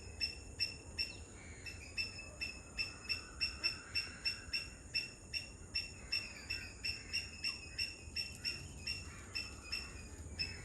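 A bird calling over and over in a fast series of short, sharp notes, about three a second, pausing briefly near the start. A steady high-pitched hum runs beneath it.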